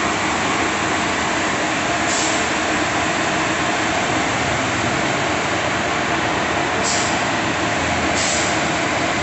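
Concrete mixer truck's engine running as the truck reverses slowly, a loud steady noise. Three short high hisses are heard, one about two seconds in and two near the end.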